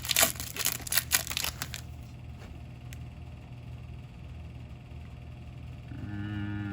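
A baseball card pack's wrapper crinkling and tearing open for about the first two seconds, then quieter with a steady low hum. Near the end a steady mechanical drone starts.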